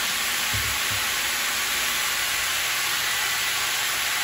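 Vegetable stir-fry sizzling steadily in hot oil in a frying pan, with two soft low knocks about half a second in.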